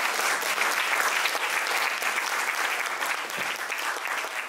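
Audience applauding, a dense, even clapping that slowly fades near the end.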